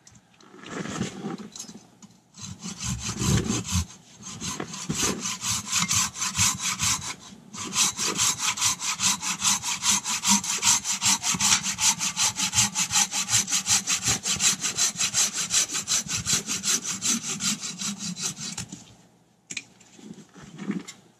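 A hand saw cutting through a piece of firewood in quick, even strokes, with a short pause about seven seconds in. A few knocks of wood being handled come before the sawing starts.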